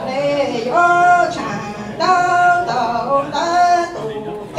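A singer's voice chanting lug txaj, Hmong sung poetry, in held notes that bend in pitch and break off every half second or so.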